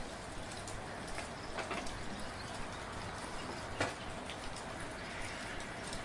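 Steady rain falling, with scattered individual drops tapping louder above the hiss; the loudest single drop comes about two-thirds of the way through.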